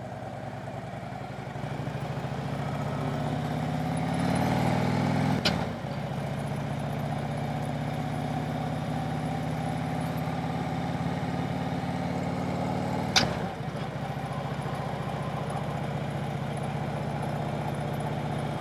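Harley-Davidson V-twin motorcycle engine running on the move, building for the first few seconds. Two sharp clicks, about five seconds in and again about thirteen seconds in, each followed by a brief dip in the engine sound.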